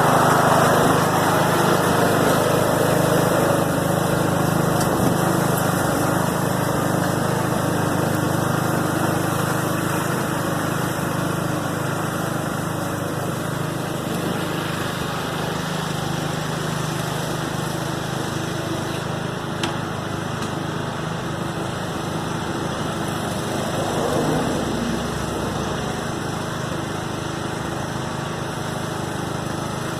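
Riding lawn mower's small engine running steadily.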